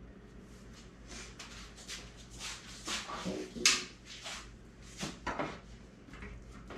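Kitchen handling sounds: a series of short knocks, scrapes and rustles, like utensils, bowls and a drawer or cupboard being moved, the sharpest a little under four seconds in.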